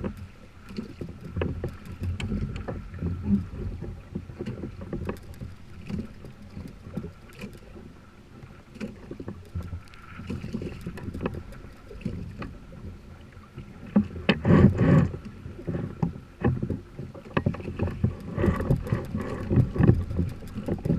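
Water sloshing against a kayak hull, with scattered small knocks and clicks on the boat. It swells louder about two-thirds of the way through and again near the end.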